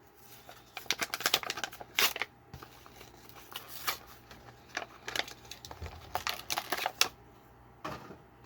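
Plastic blister pack and cardboard backing card of a diecast toy car being cracked and torn open by hand: a string of crinkles, snaps and clicks, with short pauses between bursts.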